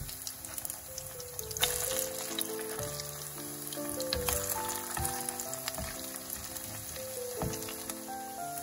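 Potato pancakes frying in shallow olive oil in a non-stick pan: steady sizzling with a few sharp clicks. Melodic background music plays over it.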